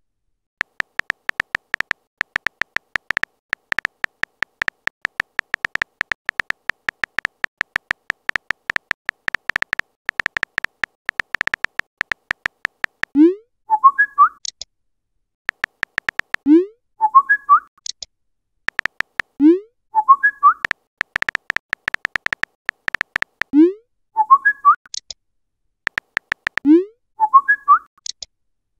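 Phone-messenger sound effects: a long run of rapid keyboard tap clicks as a message is typed, then five times a short rising whoop and a bird-like chirp as each message is sent or arrives, with more bursts of tapping in between.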